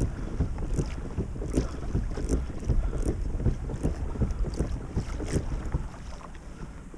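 Water slapping and splashing against a kayak's hull as it moves through a light chop, with wind buffeting the microphone. The slaps come irregularly and ease off near the end.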